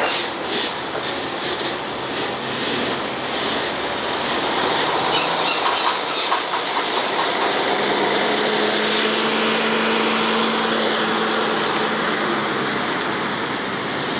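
Heavy semi-trailer truck running at idle, a steady low drone that stands out for several seconds in the middle, over steady outdoor noise. Evenly spaced light ticks come a little before the drone.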